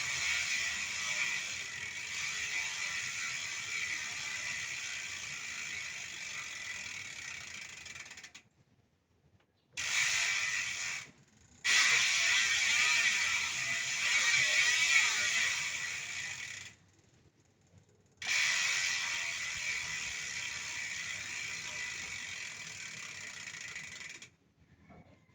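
Bicycle rear freehub buzzing in a fast, continuous ratchet as the wheel is spun and left to coast. It comes in four long runs with short silent breaks between them, and each run slowly fades.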